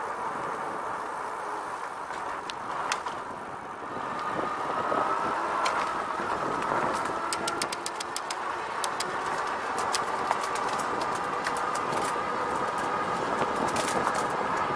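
Riding noise of a Rad Power Bikes RadRover fat-tyre eBike on a paved path, heard from a camera mounted on the bike: a steady rush of tyres and wind, with a faint whine from about four seconds in. A run of small sharp rattling clicks comes through in the second half.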